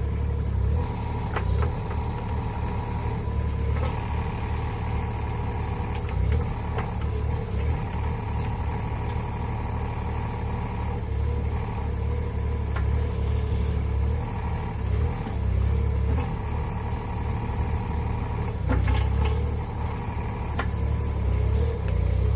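Small excavator's engine running steadily, with a hydraulic whine that swells and drops as the controls are worked, and a few sharp clanks from the bucket.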